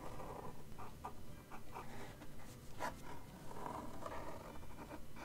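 Fineliner pen scratching on sketchbook paper in short, irregular strokes, inking fuzzy fur texture.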